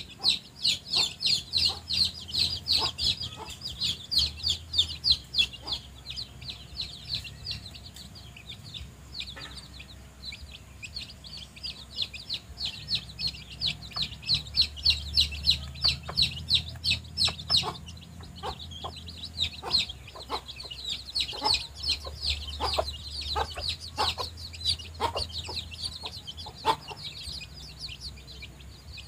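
Baby chicks peeping continuously, many rapid high-pitched cheeps a second, with a mother hen's short low clucks mixed in, more of them in the second half.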